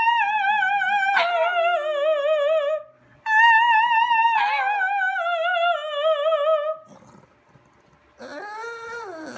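A soprano sings two long, downward-sliding operatic notes with wide vibrato, and a pug howls along briefly with each. A shorter, lower vocal sound comes near the end.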